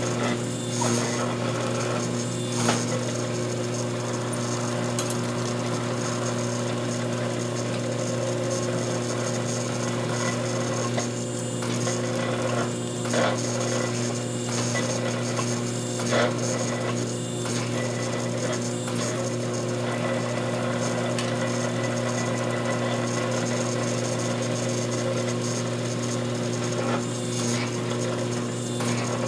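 Forging press's hydraulic pump and motor humming steadily, with a few scattered knocks and scrapes of tongs and scale as a hot wootz steel ingot is pressed and turned between the dies.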